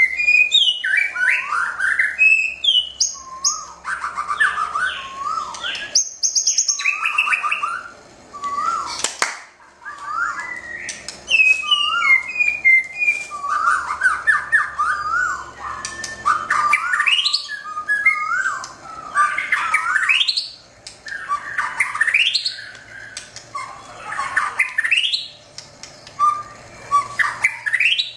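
White-rumped shama (murai batu) singing a long, varied song of loud whistled phrases, quick rising sweeps and rapid trills, broken by short pauses.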